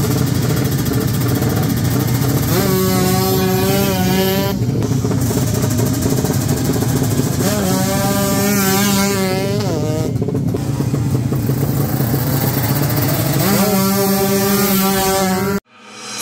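Racing motorcycle engine revved hard three times, each rev rising and then held high for a second or two, over continuous engine noise between them. The sound cuts off suddenly near the end.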